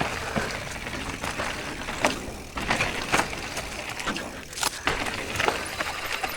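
YT Capra mountain bike being ridden over a rough dirt trail and jump: repeated knocks and rattles from the bike over a steady rushing noise.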